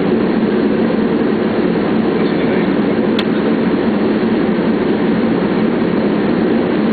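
Steady cockpit noise of an MD-80 airliner on final approach, airflow and engines, with the landing gear down. A single sharp click about three seconds in.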